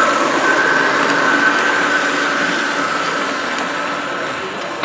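Model passenger train running along the layout track: a steady whine over an even rolling hiss.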